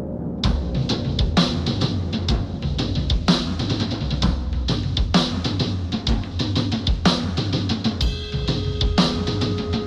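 Recorded noise-rock music: after a soft ambient passage, a full drum kit with bass drum and snare comes in about half a second in and keeps a steady driving beat. A held note joins near the end.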